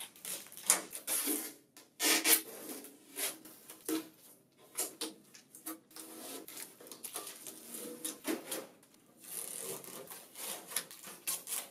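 Orange packing tape being peeled off the metal and plastic panels of a printer cabinet, a series of uneven rasping pulls and rustles with short pauses between.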